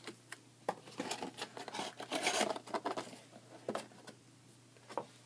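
Handling of a trading card box and its wrapped packs: a run of short clicks, taps and crinkly rustles, busiest in the middle, with a last click near the end.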